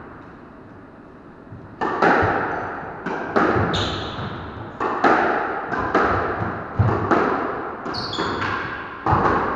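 Squash rally: the ball cracks off rackets and court walls roughly once a second, each hit ringing briefly in the enclosed court, with a few short squeaks of court shoes on the wooden floor. The hits begin about two seconds in, after a quieter start.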